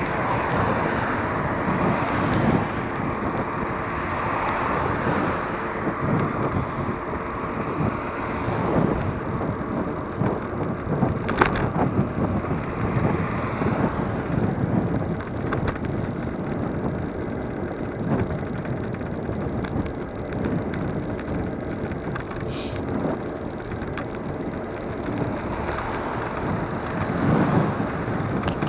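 Steady wind rush over the microphone and road noise from an electric scooter riding along a road in car traffic, with a sharp click about eleven seconds in.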